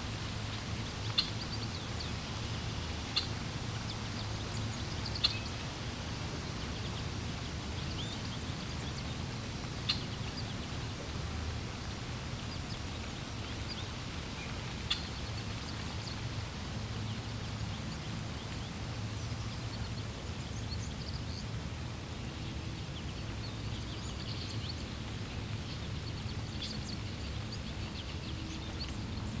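Steady low rush of flowing water with birds chirping: short, sharp high chirps every few seconds, coming more often near the end.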